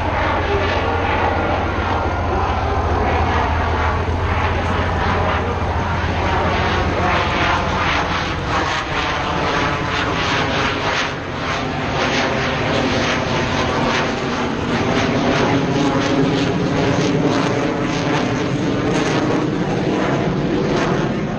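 Aerobatic propeller plane's piston engine running hard in a low pass, a steady buzzing drone whose pitch bends up and down as it manoeuvres.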